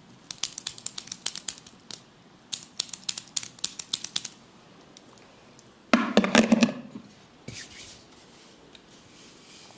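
Hands working a man's head and upper body in a massage. First comes a quick run of crisp clicks, about eight a second, for about four seconds. Then, about six seconds in, comes a loud short cluster of cracks and thumps, with one smaller pop soon after.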